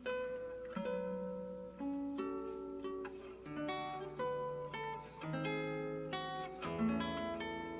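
Background music: acoustic guitar playing a slow melody of single plucked notes, each ringing and fading.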